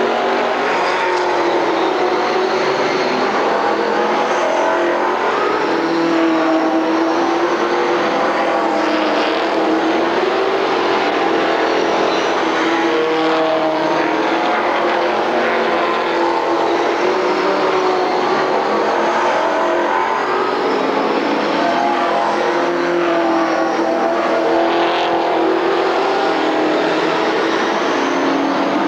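A pack of oval-track stock cars racing, several engines running hard together without a break, their pitch wavering up and down as the cars go round.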